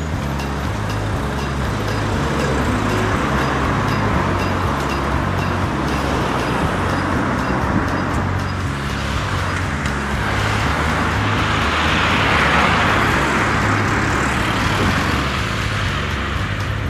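Street traffic at a town-centre intersection: cars passing, with the sound swelling as one goes by near the camera about twelve seconds in. A low bass line of background music runs underneath.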